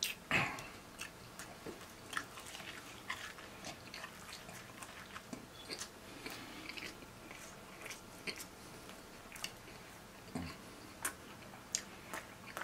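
Close-miked biting and chewing of pizza: a run of short wet mouth clicks and smacks, with a louder one just after the start.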